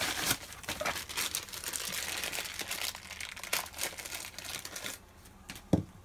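Brown paper envelope rustling and crackling as it is handled, for about five seconds. A single sharp click comes near the end.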